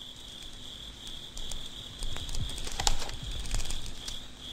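Crickets chirping steadily in a continuous high trill, with a few soft clicks and rustles, the loudest just under three seconds in.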